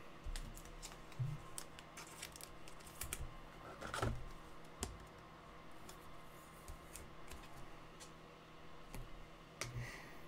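Faint, scattered clicks and taps of trading cards being handled, flipped through and sorted by hand.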